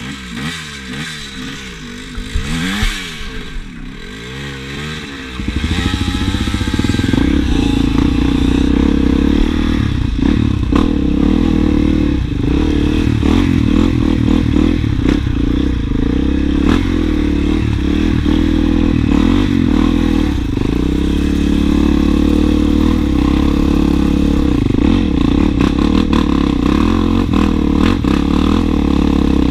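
Dirt bike engine revving up and down with clatter from the bike on rough ground. The pitch rises and falls more quietly for the first five seconds or so, then the engine becomes much louder and holds steady under hard riding.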